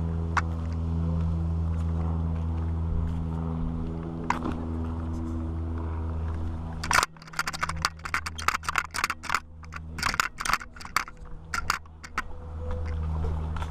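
A steady low engine hum runs, then about seven seconds in it gives way to a run of sharp clicks, scrapes and rubbing from the action camera being handled and carried. The hum returns near the end.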